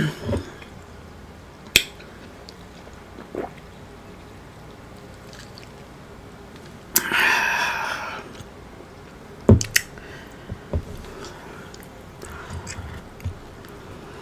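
Close-miked mouth sounds of chewing food: scattered wet clicks and smacks, with one longer, noisier mouth sound lasting about a second, seven seconds in.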